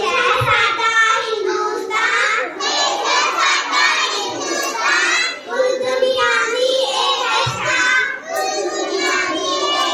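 Young girls' voices in a loud, continuous sing-song delivery, the pitch rising and falling without long pauses.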